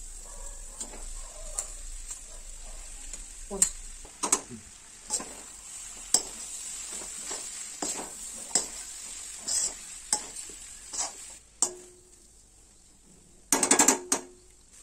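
Perforated metal spatula scraping and knocking against a metal kadhai as boiled vermicelli is stirred into vegetables frying in oil, with a steady sizzle underneath. A quick run of loud metal knocks comes near the end.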